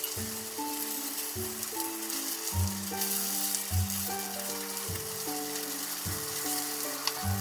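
Cubes of tofu sizzling as they pan-fry in oil in a frying pan, under background music.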